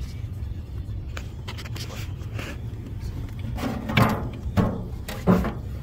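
Chevrolet pickup's engine idling, heard from inside the cab as a steady low rumble, with a few light clicks and, near the end, three short knocks.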